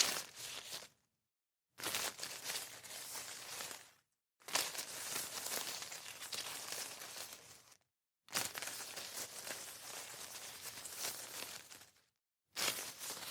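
Dry leaves rustling and crunching in a string of separate takes a few seconds each, with dead silence between them.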